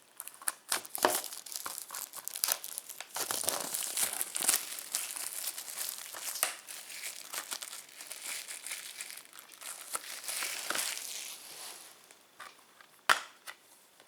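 Plastic shrink-wrap being torn and crinkled off a 4K UHD disc case, with a sharp click about 13 seconds in.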